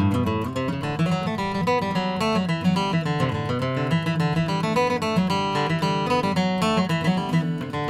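Background music: acoustic guitar strumming and picking, steady throughout.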